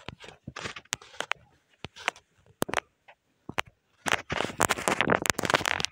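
Scattered sharp clicks and taps, then about four seconds in a dense stretch of scratchy rustling noise full of rapid clicks, louder than the rest.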